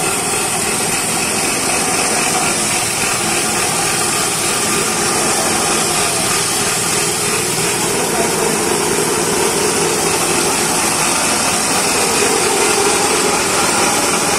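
An engine running steadily with a constant hiss, unchanging throughout.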